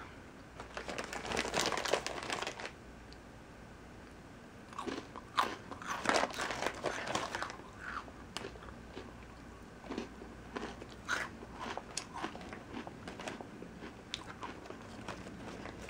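Crunchy cookies being bitten and chewed close to the microphone: a stretch of crunching about a second in, another from about five to seven seconds, then scattered small crunches and clicks.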